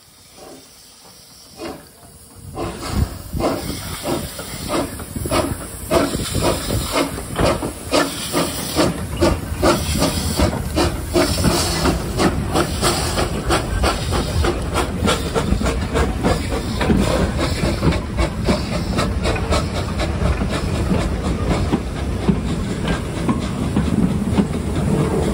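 NZR D-class steam tank locomotives getting a passenger train under way, with loud hissing steam and exhaust chuffs that start about two seconds in. The chuffs come faster and faster as the train picks up speed, then blend into a steady rush of steam and rolling train.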